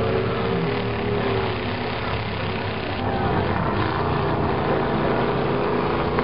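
Several old pickup truck engines running and revving at once in a demolition derby, a dense, steady engine racket with overlapping pitches that waver slightly.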